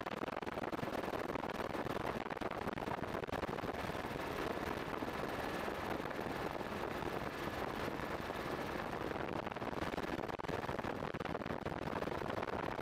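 Steady, rough roar of a helicopter in flight, with a faint high steady tone that fades out about two thirds of the way through.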